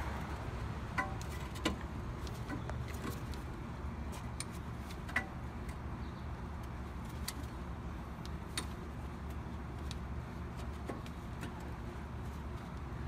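A few scattered light metallic clicks and taps as a C-clamp screw is turned against a brake caliper to compress its piston, over a steady low background hum.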